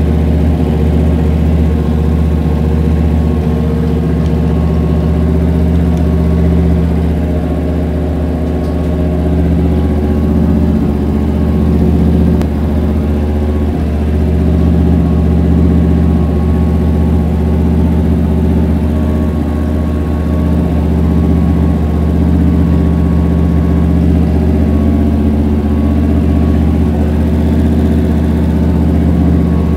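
Chevrolet 327 small-block V8, fitted with cast-iron exhaust manifolds, running at a steady speed on an engine dyno while it warms up.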